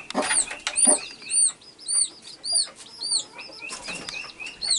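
Newly hatched chicks peeping: short, high, arched calls, several a second, with a few low clucks from the broody hen among them.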